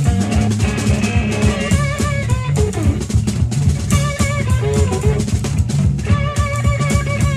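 Electric blues band playing an instrumental passage without vocals: slide guitar lines with wavering held notes and glides, over a second guitar and a steady drum beat.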